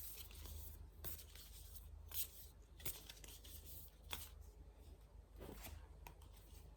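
Thick matte cards being handled: faint, scattered rustles and light taps of card stock, several brief ones spread through, over a low steady hum.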